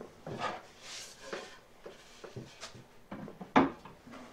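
A board sliding into a narrow slot in a pine tool chest: a scrape of wood on wood and several hollow wooden knocks, the loudest about three and a half seconds in.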